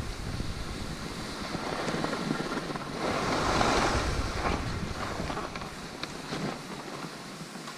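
Skis hissing and scraping over snow during a run through the trees, with wind buffeting the microphone; the ski noise swells loudest about three to four and a half seconds in.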